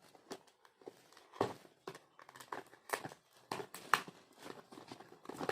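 A gift box being opened and its contents handled by hand: irregular rustles, clicks and light knocks of packaging.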